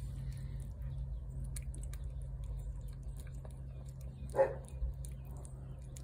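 A cat eating shredded chicken in gravy from a plate: soft wet chewing with small clicks throughout, one brief louder sound about four seconds in, and a steady low hum underneath.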